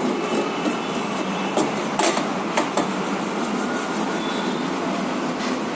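Steady background noise with a few sharp clicks and knocks, the clearest about two seconds in, from plastic printer parts being handled and fitted during reassembly of a LaserJet printer.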